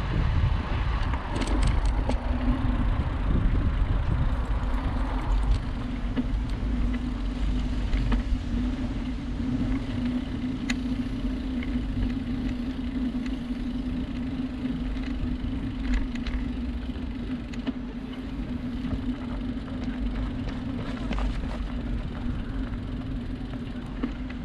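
Bicycle riding along a canal towpath, heard through a GoPro's microphone: a steady rumble of wind on the microphone and tyres rolling, with scattered light clicks and rattles. A steady low hum comes in about two seconds in and holds almost to the end.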